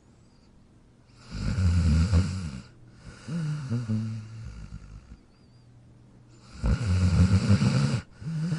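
A sleeping dog snoring: two loud snores about five seconds apart, each followed by a softer breath out that carries a low humming note.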